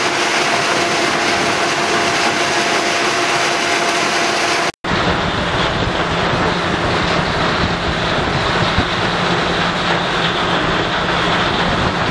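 Stone crushing plant running: a conveyor carrying crushed rock and a vibrating screen give a steady, loud mechanical noise with a steady hum. About five seconds in it cuts out for an instant, then comes back duller, as machinery noise with a lower hum.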